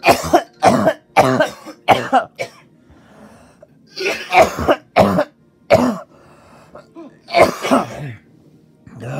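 A person's voice in short, harsh, loud bursts: five quick ones in the first two and a half seconds, three more about four seconds in, and a longer one near the end, each falling in pitch.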